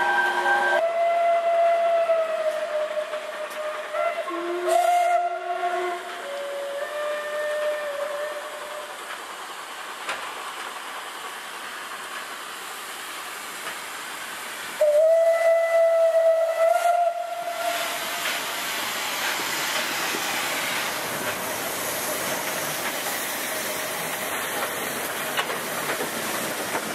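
Steam whistle of ČSD steam locomotive 534.0432 blowing several notes at different pitches, then one louder, longer blast about fifteen seconds in. After it comes a steady hiss of steam from the cylinder drain cocks as the locomotive moves off.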